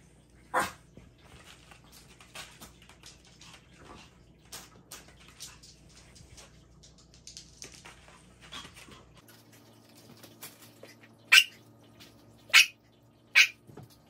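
Soft rustling of plush fleece fabric and plastic wrap being handled, then three short, loud dog barks about a second apart near the end.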